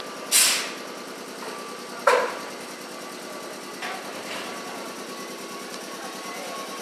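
JR West 105-series electric train moving off from a standstill: a steady running hum, two sudden loud bursts of noise in the first two seconds, and a faint motor whine starting to rise in pitch near the end as it picks up speed.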